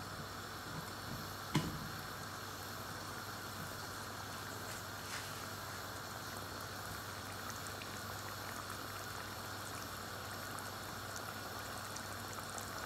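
Chicken curry broth simmering in a pot, a steady bubbling hiss, with one sharp click about a second and a half in.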